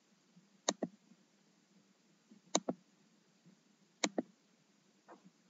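Computer mouse button clicked three times, a second or two apart, each a quick press-and-release double click, with a fainter click near the end.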